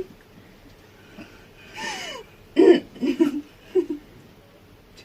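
A person's voice, not speaking: a short puff of breath about two seconds in, then about a second of short, breathy vocal sounds.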